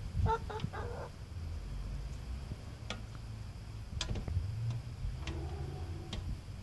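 Hens clucking: a short run of clucks just after the start and a lower, drawn-out call about five seconds in, with a few sharp taps as they peck.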